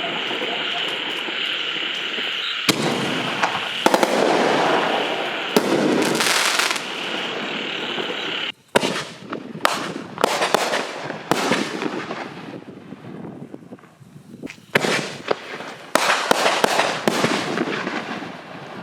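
Aerial firework canister shells (7-inch Miracle Ginormous Shells) bursting overhead, with a dense crackle and a steady high whine over it for the first few seconds. It breaks off abruptly about eight seconds in, followed by a string of separate sharp bangs and pops that thin out toward the end.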